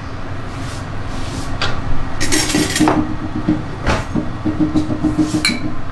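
Kitchen cookware being handled: scattered knocks and clinks of a spoon, glass and pan, with one brief scrape a little over two seconds in, over a steady low background noise.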